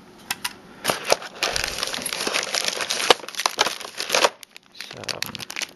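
Plastic packaging crinkling and rustling as parts are handled and lifted out of a kit box's tray, densest from about a second in until past the middle, then a few scattered clicks and rustles.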